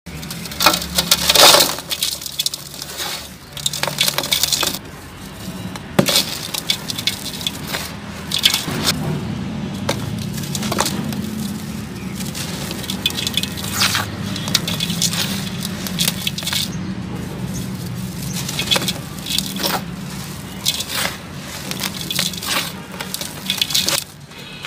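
Dry sand-cement chunks crushed and crumbled by hand, giving irregular crunches and cracks, with grit and dust falling into a metal basin.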